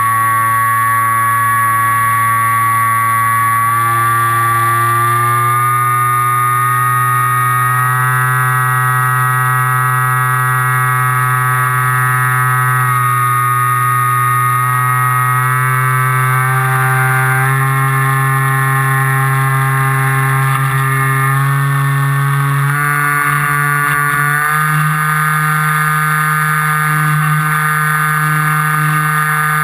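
Model aircraft's motor and propeller droning steadily as heard from the onboard camera, its pitch stepping up twice in the last third as the throttle is raised.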